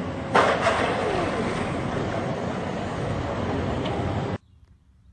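A skateboarder and his board slam onto a concrete skatepark bowl about half a second in, over steady outdoor noise; the sound cuts off abruptly about four seconds in, leaving near quiet.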